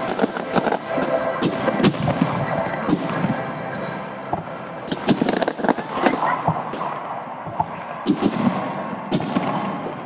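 Fireworks display: many shell bursts and crackling reports going off in rapid clusters, with a short lull about four seconds in before the bangs pick up again.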